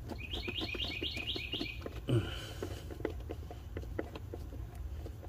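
A bird's quick run of about seven rising chirps in the first two seconds, over scattered light clicks and taps of hand tools on the engine's air intake hose fittings, with a dull knock a little after two seconds.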